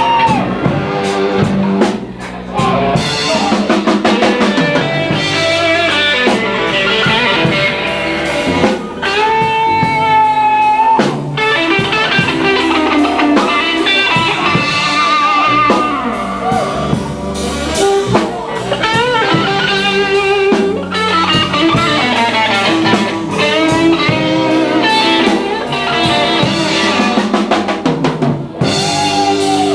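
Blues band playing live: lead guitar with bending, wavering sustained notes over a drum kit.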